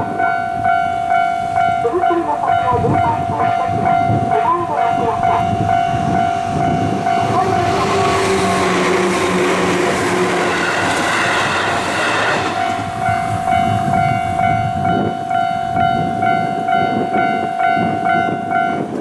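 Japanese railroad crossing alarm sounding a steady high tone. A train runs through the crossing about seven seconds in, and its rumble and wheel noise cover the alarm for some five seconds before the alarm is heard alone again.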